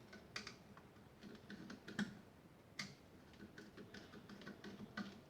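Faint, irregular small clicks and taps of hands working a wall light switch with a screwdriver, a few clicks a second with three slightly louder ones.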